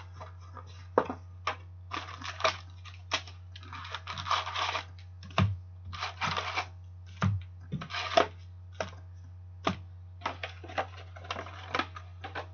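A cardboard box of 2013-14 Upper Deck Black Diamond hockey card packs being opened by hand: flaps pulled and torn, packs rustled and set down on the counter in irregular rustles, clicks and knocks. A steady low hum runs underneath.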